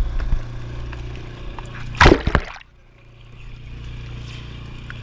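Seawater splashing against a camera held at the waterline, loudest in one burst about two seconds in, after which the sound turns suddenly dull and quiet as the camera goes under. A steady low hum runs beneath.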